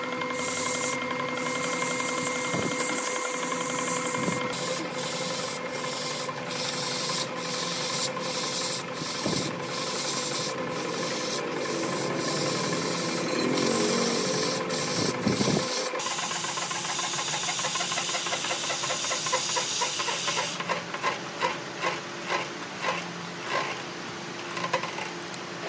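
Wood being sanded with a power tool: a motor's steady whine under the rasp of abrasive rubbing on wood. In the last few seconds the rubbing comes in short, quickly repeated strokes.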